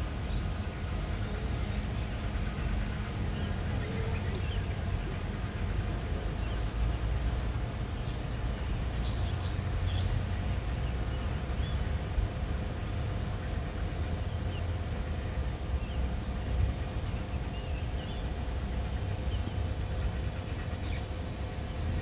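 Steady low outdoor rumble with faint, scattered short bird chirps.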